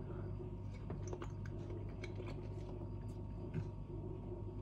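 Quiet room tone: a steady low hum with a few faint small clicks scattered through it.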